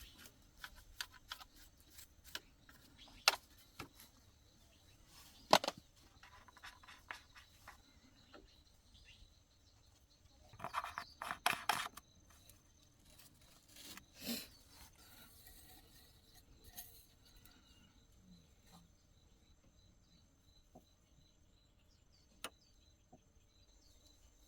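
Scattered light clicks and knocks, like tools or small parts being handled, with a short clattering run about eleven seconds in, over a faint steady insect chirr.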